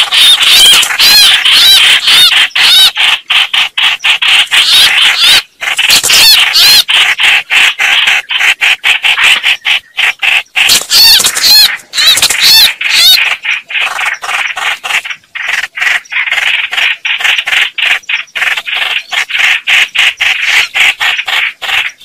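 Red-whiskered bulbuls calling in a fight: a dense, continuous run of harsh chattering and quick warbling notes, broken only by a couple of brief pauses.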